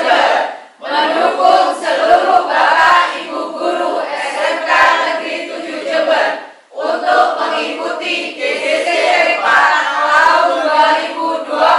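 A group of voices singing and chanting together in unison, loud and continuous, with a short break about a second in and another just past the middle.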